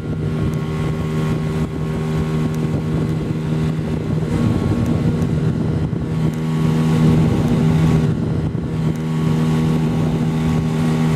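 Outboard motor running hard under a loaded inflatable PVC boat, pushing it up onto the plane: a steady engine note over the wash of the water, with wind on the microphone. The engine gets a little louder for a few seconds about six seconds in.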